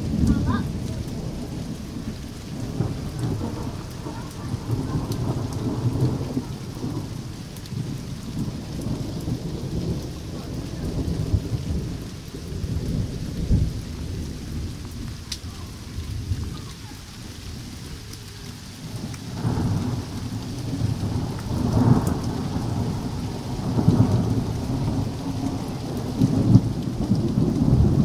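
Thunder rumbling in long rolls that swell and fade, easing off about two-thirds of the way in and then building again toward the end, over steady rain with scattered drips.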